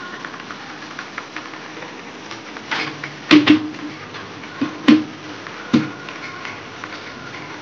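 Background music under a handful of sharp knocks of a utensil against a cooking pot, each with a brief ring. The loudest are a quick pair about three and a half seconds in.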